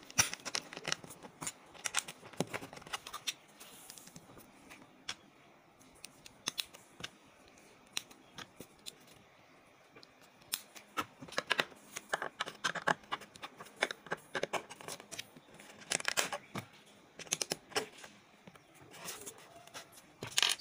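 Small plastic LEGO bricks being handled and pressed together: scattered sharp clicks and snaps coming in clusters, with quieter stretches between.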